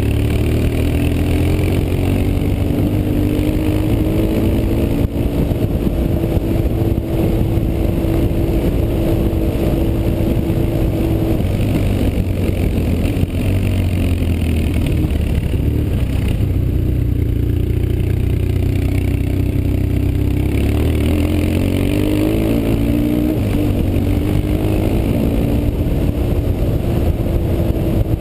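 BMW R 1150 GS's air-cooled boxer twin running under way, its pitch holding steady, dropping about halfway through and climbing again later as the throttle and gears change.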